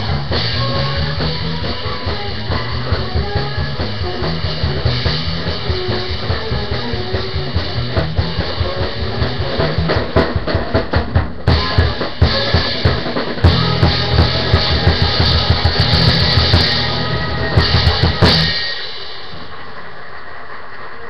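Drum kit played along with a big-band recording: busy snare and bass-drum work with cymbals, the hits growing louder and denser in the second half. About eighteen seconds in, the music and drumming stop abruptly, leaving a steady hiss.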